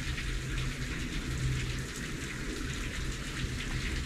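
Steady pouring rain, a dense patter of drops with a low rumble underneath.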